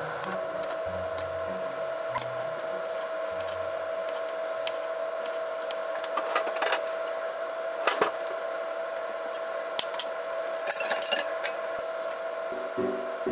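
Kitchen knife cutting cherry tomatoes on a wooden cutting board: scattered sharp taps of the blade on the board, clustered in the second half, over a steady tone.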